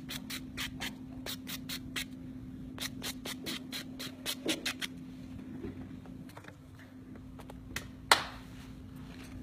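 Nail buffer block rubbed over an acrylic nail in quick back-and-forth strokes, about four to five a second, stopping about five seconds in. A single sharp click near the end.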